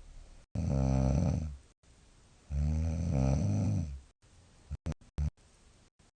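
A woman's heavy, deep snoring: two long, loud snores about two seconds apart, then a few short, quiet clicks near the end. She puts the heavy snoring down to the rice-pollen season and perhaps to not wearing her mouthpiece lately.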